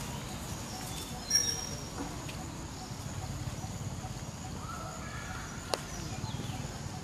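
Outdoor ambience with a steady low rumble. There is a brief, sharp high-pitched squeak about a second in, a faint short gliding animal call around five seconds, and a single sharp click just before six seconds.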